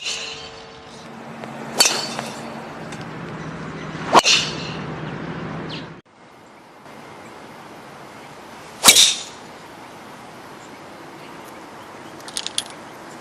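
Driver clubhead striking a golf ball on the tee, a sharp crack with a short ringing tail, four times, with a few faint clicks near the end.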